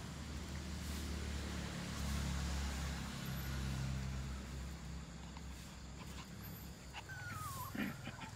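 Puppies play-fighting, with one giving a short falling whine about seven seconds in, over a steady low hum.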